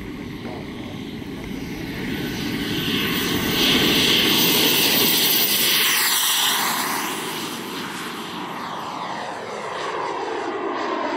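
Giant-scale RC BAE Hawk jet's model turbine engine at high power on the takeoff run: a loud rushing hiss that swells as the jet passes close by about six seconds in. Its pitch then drops and it fades as the plane climbs away.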